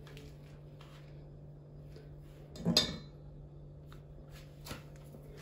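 Kitchen handling sounds: a spoon or other utensil knocks once against a dish about halfway through, with a few faint rustles around it, over a faint steady low hum.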